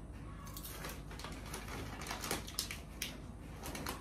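Crunchy packaged snack being bitten and chewed: a quick, irregular run of small crunches.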